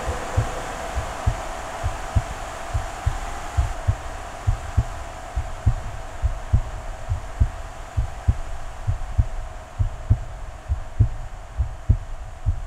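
Heartbeat sound effect: a steady double thump, lub-dub, about once a second, over a steady hum that fades during the first few seconds.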